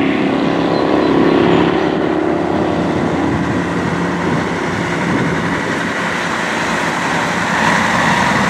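Fire truck engine running as the truck drives slowly past, with a higher steady tone coming in near the end.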